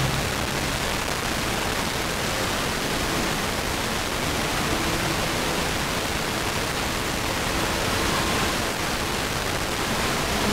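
Steady hiss of an FM tuner on a very weak, distant station that has faded almost entirely into noise, with faint snatches of the station's audio just audible in places.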